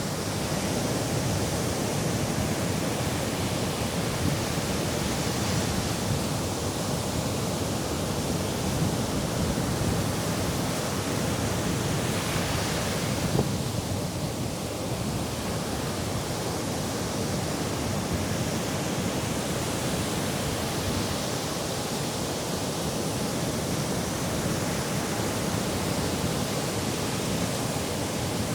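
Sea surf washing steadily, a constant rushing noise that swells and eases slowly.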